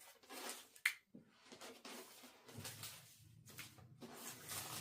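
Rustling and handling noise from rummaging for a DJI Mic 2's furry windscreen in its kit, with one sharp click a little under a second in. A steady low hum comes in about halfway through.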